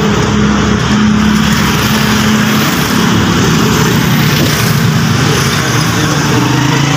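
Steady motor-vehicle engine noise from street traffic, with an engine hum that drops lower about halfway through.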